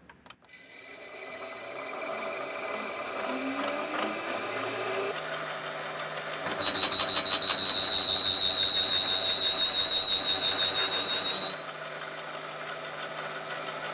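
A power machine tool's motor spinning up with a rising hum. About six and a half seconds in, the cutter bites into metal: loud, with a steady high whine and a fast rhythmic chatter. After about five seconds it eases back to the machine running.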